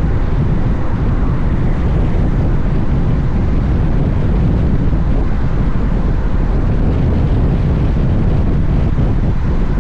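Steady wind noise buffeting the microphone of a Honda X-ADV motorcycle riding at an even speed, with the bike's running and road noise underneath.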